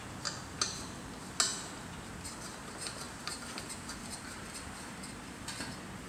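Small metallic clicks and taps of a brass hose fitting and ball valve being handled and tightened onto the valve of a refrigerant tank, the sharpest about a second and a half in.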